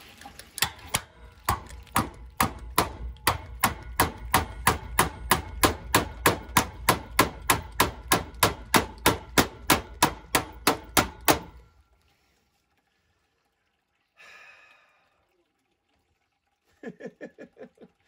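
Rapid, evenly spaced metal blows, about three a second, stopping after some eleven seconds: a tool being hammered to shock loose a seized low-water-cutoff probe fitting on a steam boiler. A quick run of lighter clicks comes near the end.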